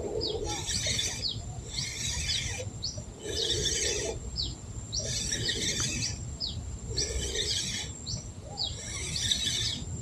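Wild birds calling in a steady repeating pattern: a high rasping call about every 1.2 seconds, with short falling chirps between them, over a thin steady high-pitched whine.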